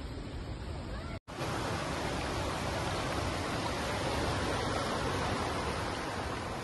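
Shallow, rocky mountain river rushing over rapids: a steady noise of running water. The sound cuts out for an instant about a second in, and the water noise starts up fuller just after.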